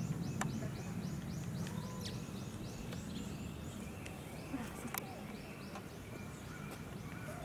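Outdoor ambience: high, arching chirps repeated about four a second, coming in runs that stop and start again, over a steady low background murmur, with a few sharp clicks.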